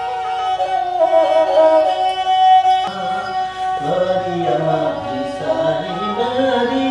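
A Nepali sarangi, a bowed folk fiddle, plays a traditional tune in long held notes. About three seconds in, a man's voice starts singing along with the sarangi.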